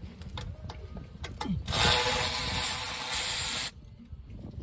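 A hissing spray that switches on sharply for about two seconds and cuts off suddenly, with a few faint taps and clicks before it.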